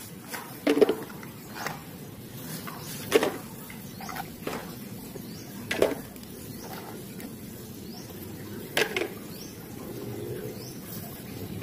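Muddy plastic toys set down one at a time on a painted wooden tray, a short knock every two to three seconds, four in all. Faint bird chirps in the background.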